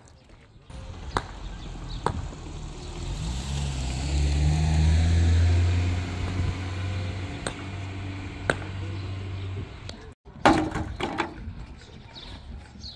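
A motor vehicle's engine passing by, growing to its loudest about five seconds in and then fading, with a few light knocks. Near the end, a few clacks of stones dropped into a metal wheelbarrow.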